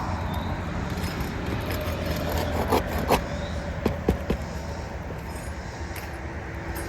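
A few sharp metallic clinks and knocks, some ringing briefly, from a metal tool working roofing nails loose from under an asphalt shingle. They come in a cluster around the middle.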